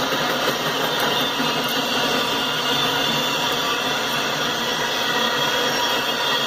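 Double-stack intermodal well cars rolling past on the rails: a steady rumble and hiss of steel wheels on track.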